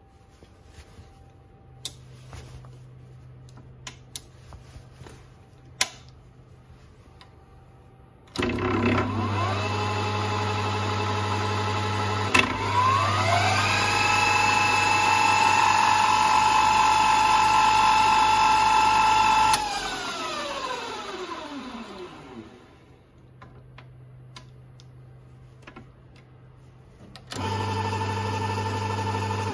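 Emco Emcomat 7 bench lathe: a few clicks of the headstock levers, then the motor and spindle start with a whine; after a click about four seconds later the whine rises to a higher speed and holds. It is switched off and winds down with a falling pitch, and near the end it starts again.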